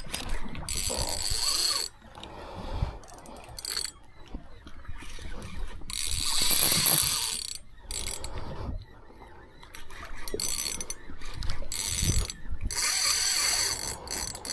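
Spinning reel cranked in quick spells with short pauses while jigging up from the bottom, giving a whirring, ratcheting gear sound.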